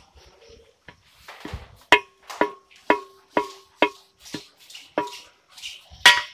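Copper AC refrigerant pipe being knocked or tapped over and over while it is straightened, about two knocks a second. Each knock rings on with a clear metallic tone.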